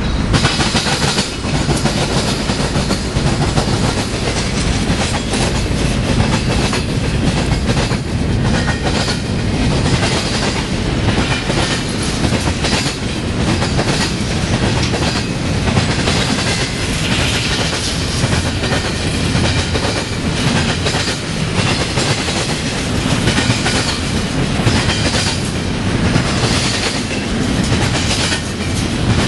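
A BNSF freight train of empty intermodal well cars passes close by, a steady loud rumble with a rapid clickety-clack of steel wheels on the rails.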